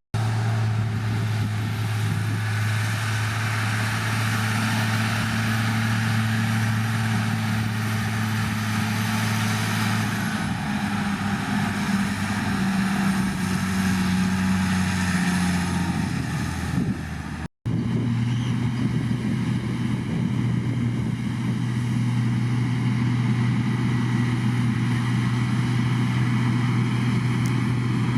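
Heavy diesel engine of a bulldozer running steadily at working revs, its pitch dipping slightly for several seconds about halfway through. The sound cuts out for an instant about two-thirds of the way in, then the engine runs on steadily.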